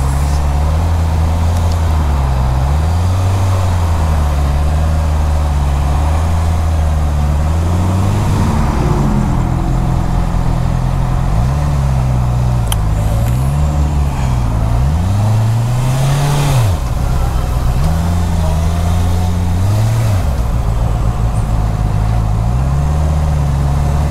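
Honda CB650R's inline-four engine running at low revs, its note rising and falling again and again as the throttle is opened and closed while creeping through slow traffic.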